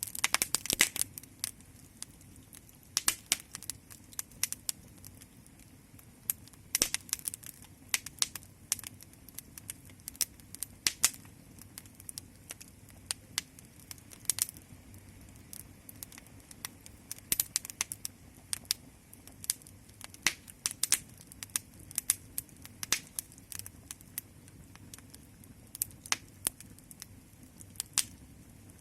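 Fire crackling: irregular sharp pops and snaps, several a second, over a faint low steady rumble.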